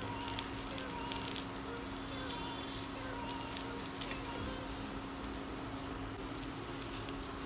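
Wood apple pulp, grated coconut and jaggery sizzling as they heat in a nonstick pan, with a silicone spatula scraping and stirring through the mix. The crackling and scraping are busiest in the first few seconds, then settle to a softer sizzle.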